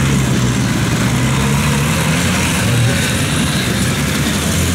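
Home-built tractor engine running steadily at a constant, low pitch.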